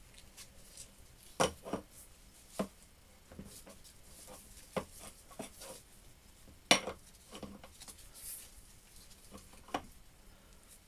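Light metal clinks and knocks of a steel shaft and the roller blocks of a shaft-truing stand being handled and set in place: a handful of separate sharp clinks, the loudest about two-thirds of the way through.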